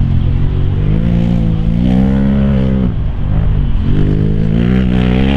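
Polaris RZR side-by-side's engine revving under hard acceleration: the pitch climbs for about two seconds, drops off sharply about three seconds in, then climbs again.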